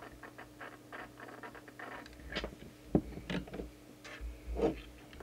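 Handling sounds from work on an open CB radio at the bench: many small irregular clicks and rustles, with two louder knocks in the second half.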